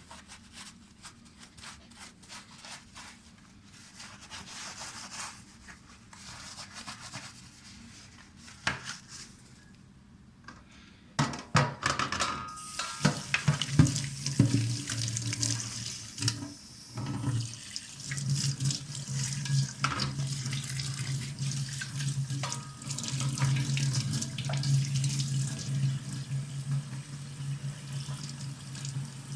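Quiet handling sounds, then about eleven seconds in a kitchen tap is opened and water runs steadily into the sink with a low hum, rinsing a dishwasher spray arm through its holes.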